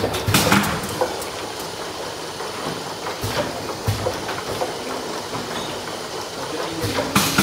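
Bottle filling and heat sealing line running, with a steady clatter of plastic bottles on the conveyor and machine parts. Two short, louder rushes of noise come about half a second in and again near the end.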